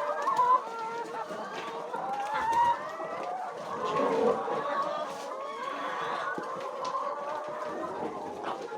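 A flock of chickens clucking and calling, many overlapping voices at once, with a few louder calls standing out.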